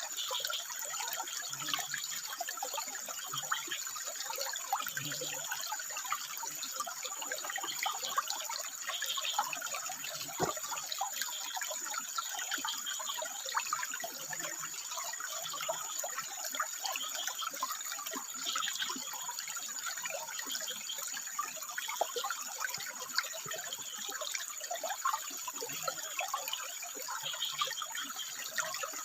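Water running and trickling over rocks, a steady splashing flow with many small drips and splashes.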